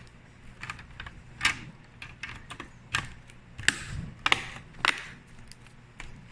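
Laptop back cover being fitted back on after a battery swap: an irregular string of sharp clicks and taps as it is pressed into place.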